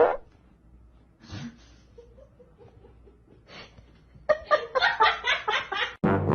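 A person laughing. There is a loud outburst at the start, then quiet, and then a fast run of ha-ha-ha pulses for the last two seconds.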